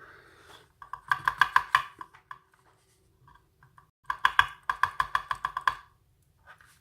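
Rapid, ringing metallic clicking from a night-latch lock cylinder being worked apart by hand. It comes in two runs, a short one about a second in and a longer one of nearly two seconds near the end, as a stuck pin or spring is worked loose.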